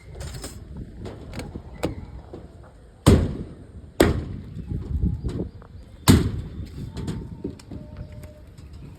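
Three heavy knocks, about three, four and six seconds in, each ringing briefly, among lighter clicks and knocks.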